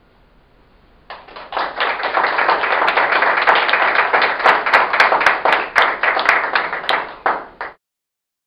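Applause from a small audience of listeners, starting about a second in and breaking off abruptly near the end.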